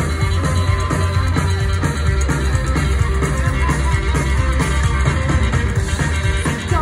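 Psychobilly band playing live and loud: upright bass, drum kit and guitar, recorded on a phone from the crowd.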